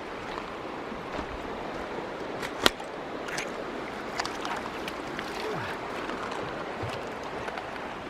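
River water rushing steadily; the river is running high and full, perhaps with spring snowmelt from the mountains. A single sharp click about two and a half seconds in.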